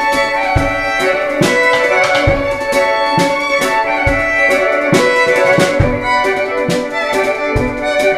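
Violin and drum kit playing together: held, bowed violin notes over a steady drum beat, with deep kick-drum thumps spaced well over a second apart and snare and cymbal strikes between them.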